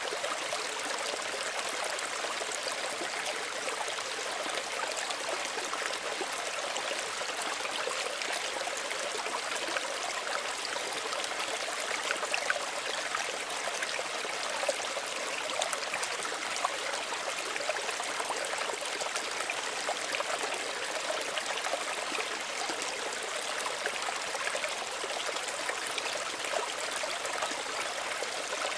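Small stream running and trickling steadily, an even splashing and bubbling of shallow water.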